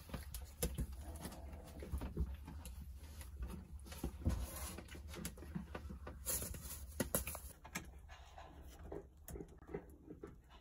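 Young Jindo puppies squirming and clambering over each other on the floor of a wooden box: scrabbling paws, light clicks and knocks, and small puppy noises. The scuffling thins out and gets quieter near the end as they settle down to sleep.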